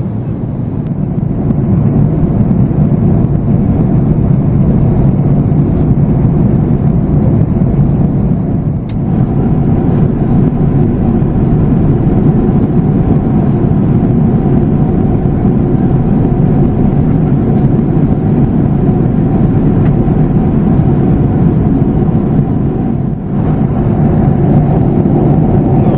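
Jet airliner cabin noise inside a Boeing 737 MAX 8 in flight: a steady, loud rush of airflow and CFM LEAP-1B engine noise. A steady hum joins in about nine seconds in.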